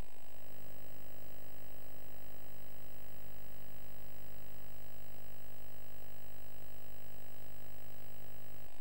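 Steady electrical mains hum with a hiss underneath and no other sound; the tone shifts slightly about halfway through.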